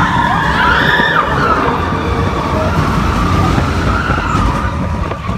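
Roller coaster riders screaming over the rumble of the coaster train and wind. Several overlapping screams are loudest in the first second, then one long wavering scream carries on.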